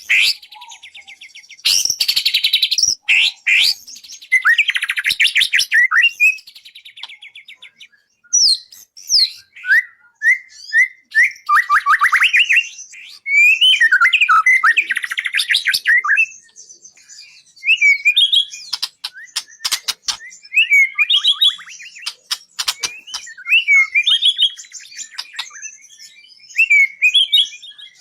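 White-rumped shama (murai batu) singing a loud, varied song. Its phrases mix rapid trills with quick rising and falling whistles, broken by short pauses, as used in a 'masteran' training recording for songbirds.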